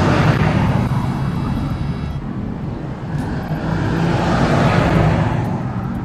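Rushing wind and road noise on a microphone worn by a cyclist riding in strong seaside wind, swelling near the start and again about four and a half seconds in.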